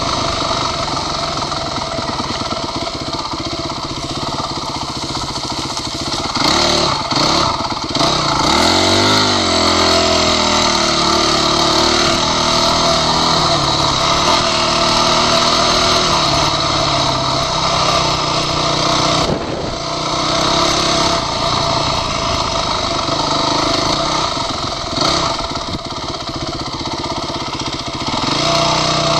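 Dirt bike engine running under throttle while riding a trail, its pitch climbing as the bike accelerates about eight to ten seconds in and briefly dropping off twice later, with wind rushing over the goggle-mounted microphone.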